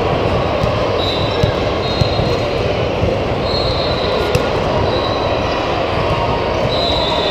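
Steady, echoing din of a large multi-court gym during volleyball play, with crowd chatter and play on many courts blended together. Short high-pitched squeaks or whistles come through several times, and a few sharp slaps of hands on the ball.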